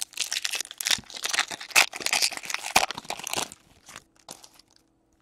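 Wrapper of an O-Pee-Chee Platinum hockey card pack crinkling and tearing as it is ripped open by hand, for about three and a half seconds, followed by a few faint rustles.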